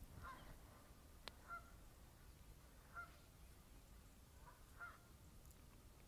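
Egyptian geese giving short, faint honking calls, four times at intervals of a second or two, with one sharp click just over a second in.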